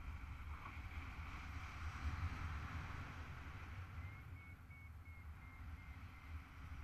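Wind rushing over the camera microphone in paraglider flight: a gusty low rumble with a hiss that swells about two seconds in. About four seconds in, a faint run of quick high beeps lasts a couple of seconds.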